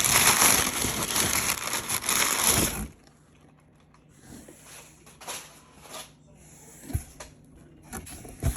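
Packing material in a delivery box rustling and crinkling as it is handled, loud for about three seconds. Then come only faint scattered rustles and a soft knock.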